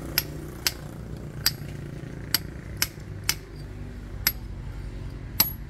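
A hammer striking a steel chisel to chip into a brick and concrete wall: sharp metallic clinks, about eight blows at uneven intervals of roughly half a second to a second.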